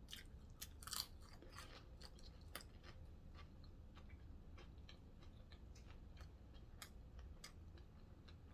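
Close-up chewing of a sandwich with the mouth near the microphone: soft, irregular crunches and wet mouth clicks, the loudest about a second in.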